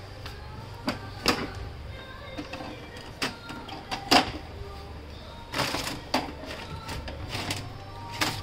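Plastic clicks and knocks as the scanner unit and top cover of an HP LaserJet Pro MFP M26 laser printer are lifted open and handled, with a sharp snap about four seconds in the loudest. A low steady hum runs underneath.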